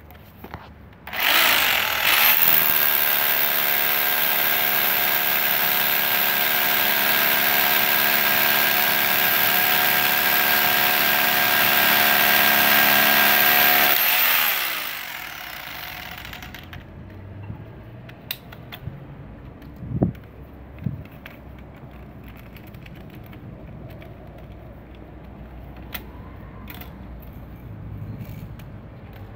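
DeWalt D25144K SDS-plus rotary hammer drilling into a concrete block with a 13 mm bit. It starts about a second in, runs steadily for about thirteen seconds, then winds down with a falling pitch. A few light knocks from handling the tool follow.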